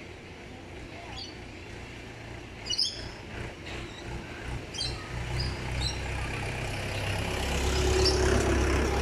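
Small birds in an aviary chirping with short, high calls, while a low engine rumble builds from about two seconds in and is loudest near the end.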